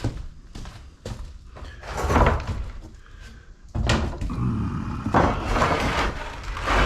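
Knocks, thuds and scraping of wooden boards being sorted and shifted. Scattered sharp knocks come first, then a longer stretch of clattering and scraping from about halfway through.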